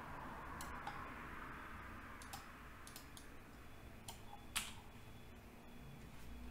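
Scattered clicks of a computer mouse and keyboard, about half a dozen of them, with the loudest about four and a half seconds in, over a faint steady hiss.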